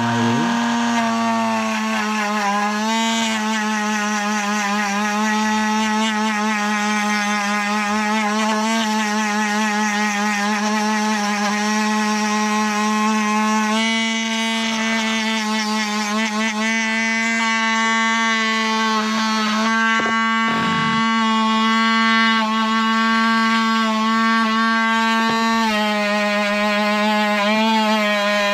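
Handheld rotary tool with a small wire brush wheel running at a steady high-pitched whine, its pitch wavering slightly as the wheel is pressed against rusty sill metal to scrub off the rust.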